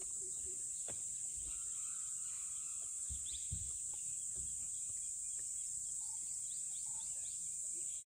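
Steady, high-pitched drone of insects in the forest, with a few faint short bird chirps now and then and some soft low thuds.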